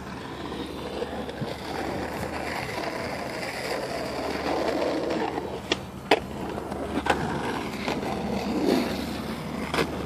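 Skateboard rolling over the concrete river channel floor: a steady rolling noise, with a few sharp clacks in the second half.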